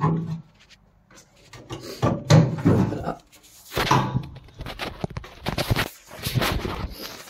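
Bonnet of a 1966 Austin Mini van being released at its catch behind the grille and lifted open: a series of separate metal clunks and scrapes.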